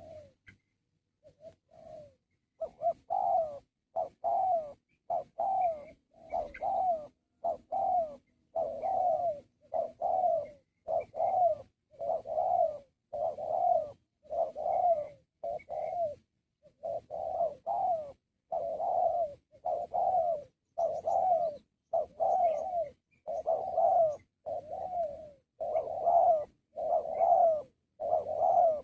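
Spotted dove (tekukur) cooing: a long run of short, repeated coos, a little more than one a second, with a brief pause around halfway.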